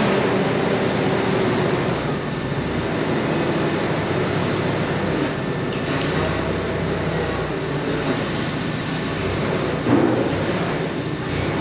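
Forklift engine running as it drives across a concrete shop floor, with a brief bump near the end.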